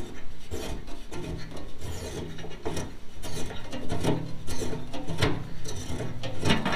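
Homemade steel T-handle bolt being unscrewed by hand from a diamond-plate aluminum toolbox, its threads scraping and clicking in a quick, irregular run.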